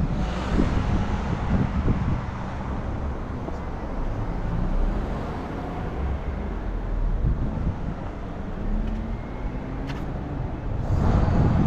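Street traffic: cars driving past on a city road, a steady rumble of tyres and engines, swelling louder near the end as a vehicle passes close.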